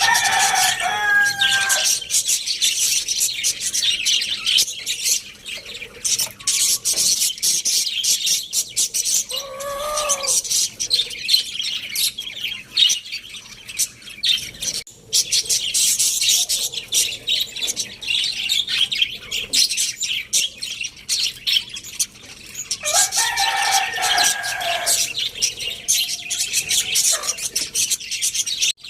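A flock of small birds chirping nonstop in rapid high notes. A few louder, lower-pitched calls from a larger bird stand out near the start, about ten seconds in, and again about 23 seconds in.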